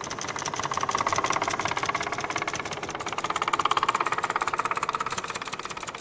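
Piston engine of a replica Wright biplane in flight, running with a rapid, even firing beat that swells louder twice as the aircraft passes.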